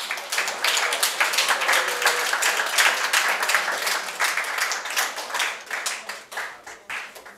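A roomful of a few dozen people applauding, dense hand-clapping that starts at once, thins out and dies away near the end.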